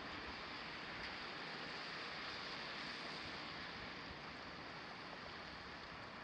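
Steady hiss of water spraying and splattering onto the road from snow-melting sprinkler nozzles set in the pavement.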